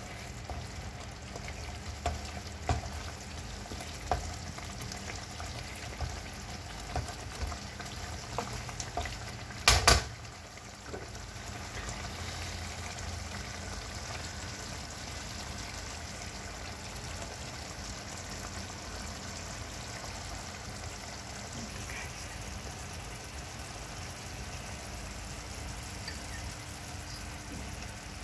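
Potato curry sizzling in a non-stick wok, stirred with a wooden spatula that knocks against the pan every second or so for the first ten seconds. The loudest sound is a sharp double knock near ten seconds, after which there is only steady sizzling.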